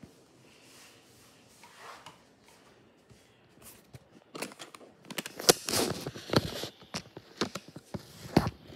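Handling noise on a tabletop: faint soft rustling, then about four seconds in a busy run of clicks, taps and scrapes as things are picked up and moved close to the phone's microphone.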